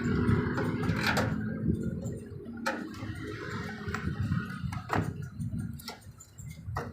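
Handling noise with a few sharp clicks and knocks as the microwave oven's sheet-metal outer cover is fitted back on.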